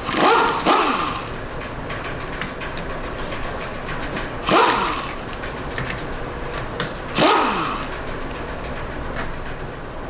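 Impact wrench spinning lug nuts off a car wheel in four short bursts, two together near the start and one each about four and seven seconds in, each followed by a falling whine as the tool winds down.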